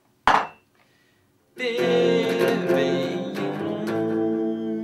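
A single sharp knock, then about a second and a half in an electric guitar starts strumming chords that ring on.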